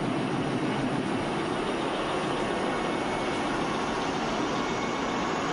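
Diesel locomotive idling, a steady drone with no change in level.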